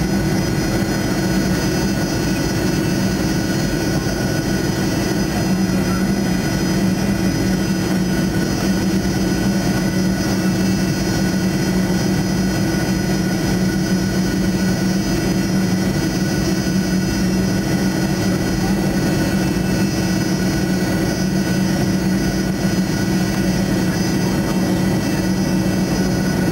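Rolls-Royce Tay turbofan of a Fokker 70 running steadily at low power, heard in the cabin right beside the rear-mounted engine. A constant hum with a low drone and several steady high whining tones over it.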